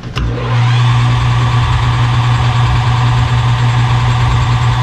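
Metal lathe switched on with a click, its motor spinning up within about half a second and then running steadily with a loud hum and a higher whine.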